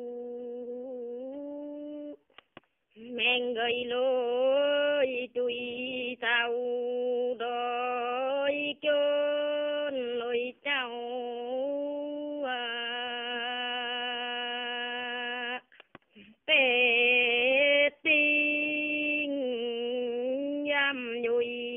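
A woman's unaccompanied voice singing a Dao Tuyển folk song in long, held notes that slowly bend and waver in pitch, pausing twice for breath.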